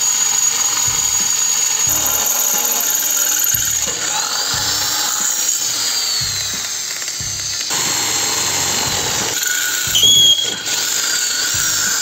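Electric drill boring into a steel bar with a twist bit, the bit squealing in the metal with a high whine that rises and falls in pitch. Background music with a steady beat runs underneath.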